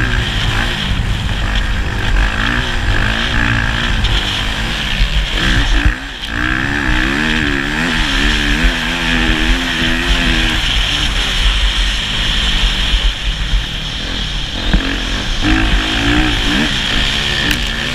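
Motocross motorcycle engine running hard, its pitch rising and falling as the throttle is opened and closed, with a brief drop about six seconds in.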